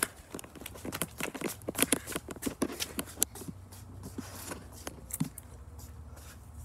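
Footsteps on a concrete path, a quick run of steps in the first three seconds or so, then fewer and fainter.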